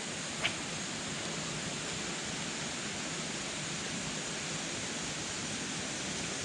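Steady rush of water from a warm-water discharge spilling over a small waterfall into a creek, with a brief click about half a second in.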